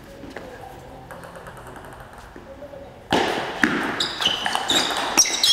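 Table tennis rally: the ball clicks off the bats and the table, faint at first. About three seconds in it gets much louder, with sharper hits and short high squeaks, as of shoes on the hall floor.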